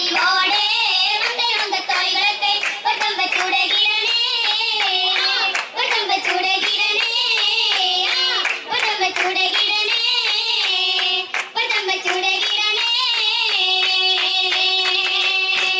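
Girls singing an oppana song in unison to rhythmic group hand clapping. Near the end the voices hold one long note, then the song stops abruptly.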